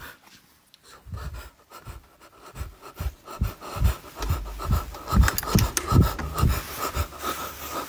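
Heavy panting close to a phone microphone, mixed with irregular rustling, scraping and knocks as the phone is handled.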